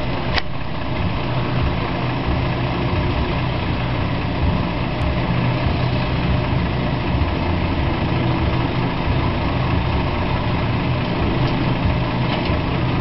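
Truck engine running steadily at an idle-like hum, powering the truck-mounted hydraulic loader crane as it lifts a car. A brief click about half a second in.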